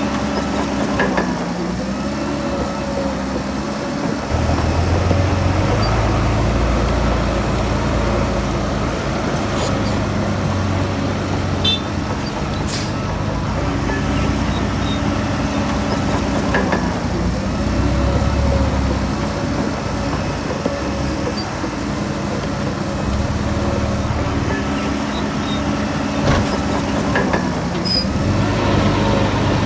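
Heavy diesel engine of earthmoving machinery running under changing load. Its pitch dips briefly about a second in, again past the middle, and near the end, and the deep engine sound swells about four seconds in. A few faint metallic clicks are heard along the way.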